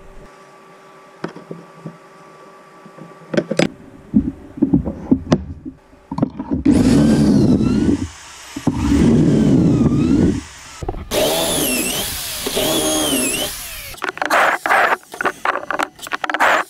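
Woodworking power tools: a few separate knocks, then three runs of a motorised tool, each a second or two long, with a whine that rises and falls, and a quick clatter of knocks near the end.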